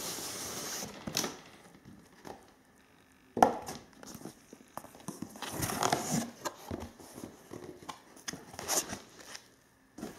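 A cardboard model box being opened by hand: scraping and rustling of cardboard and foam packing, with one sharp knock about three and a half seconds in, and more rustling as the foam insert is lifted out.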